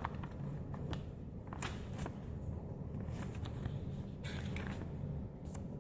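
Handling noise: scattered light clicks and rustles, over a low steady hum.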